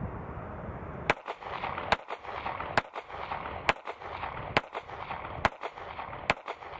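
Seven shots from a Ruger EC9S 9mm pistol firing 125-grain polymer-coated reloads, at an even pace a little under a second apart.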